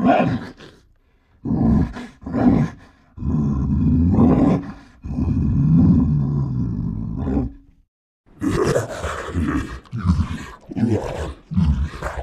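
Made-up monster roar and growl sound effects, edited from creature sound clips. A few short growls are followed by two long roars, then, after a short pause, a quick run of short growls.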